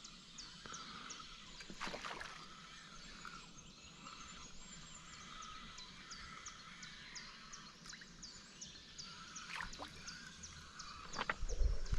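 Outdoor pond-side ambience with a short high chirp repeating about twice a second, a few light clicks and knocks, and a louder low thump near the end.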